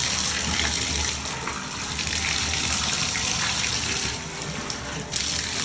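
Water running from a bathtub tap and splashing as it is poured over a wet French bulldog's coat during a rinse.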